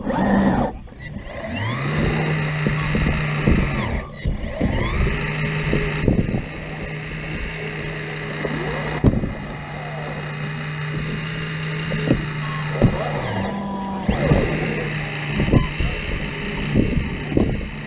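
Excavator working: a steady low engine hum that fades near the start and picks up again about two seconds in, with repeated rising and falling whines and occasional knocks as the machine moves.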